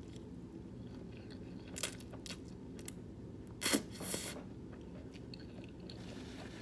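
Close-up mouth sounds of someone chewing a mouthful of food, with a few soft clicks and a louder cluster of wet smacks about three and a half seconds in.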